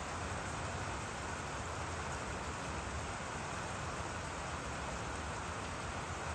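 Steady rain falling on dense tropical trees, an even hiss with a low rumble underneath.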